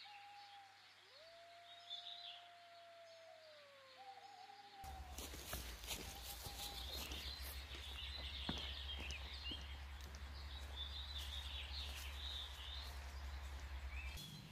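Songbirds singing in woodland. From about five seconds in there are footsteps on leaf litter over a steady low rumble. Before that, faint long tones, one sliding slowly down in pitch.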